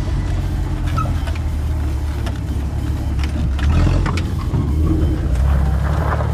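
1975 Jeep CJ5's engine running steadily as the Jeep drives slowly along a rough dirt trail, heard from inside the cab, with scattered short rattles and knocks over the bumps.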